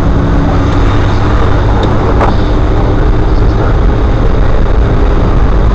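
Steady drive noise of a car moving on a rain-wet road, heard from inside the cabin: engine hum under a constant rush of tyres on wet tarmac. A single short click about two seconds in.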